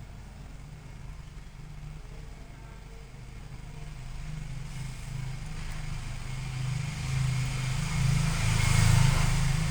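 A motor vehicle's engine running and growing louder as it approaches, loudest near the end.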